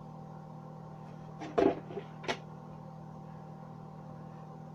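Brief handling noise from the RC car: a short clatter about a second and a half in, then a single sharp click, over a steady background hum.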